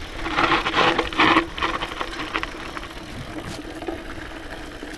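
Scott Genius mountain bike rolling fast down a steep dirt trail: tyres crunching over dirt and the bike rattling over rough ground, heaviest in the first second and a half, then easing off. A steady buzz, likely the rear freehub while coasting, runs underneath.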